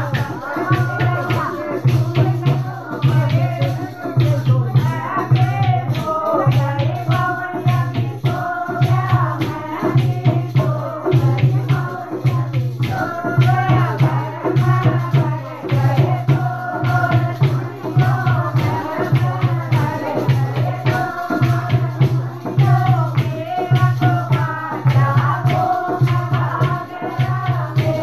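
A group of women singing a folk song together, backed by a steady low drum beat and a constant rattling, clicking percussion.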